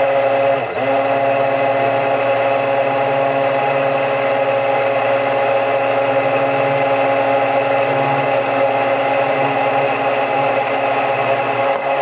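Stick blender running steadily with its blade under liquid in a glass pitcher. It is emulsifying a hot oil phase into a thickened water phase as the oil is poured in slowly.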